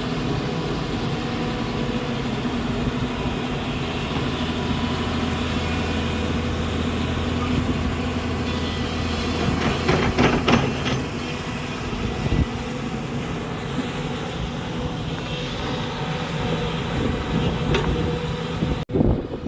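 Hyundai SMART 215L excavator's diesel engine running steadily while digging, with a short cluster of metallic clanks about halfway through and a few lighter knocks later. The sound breaks off abruptly just before the end.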